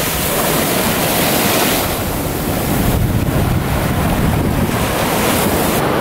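Ocean surf breaking and washing over shoreline rocks and sand, a steady rush of water, with wind rumbling on the microphone.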